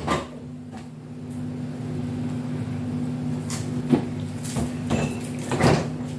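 Light taps and scrapes of hands and a spoon against a small bowl of chicken filling while siopao dough is wrapped around it, a few short knocks in all, over a steady low hum.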